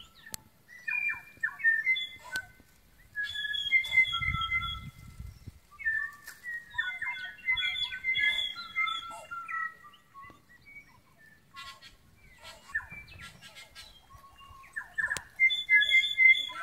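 Several tui singing in the trees: phrases of clear notes at several pitches mixed with sharp clicks, coming in bursts with short pauses between them. A brief low rumble comes about four seconds in.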